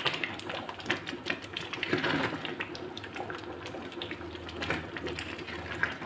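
Thick gajrela, a carrot, rice and milk pudding, bubbling in a karahi while a spatula stirs it, with many irregular pops and clicks over a steady simmering hiss.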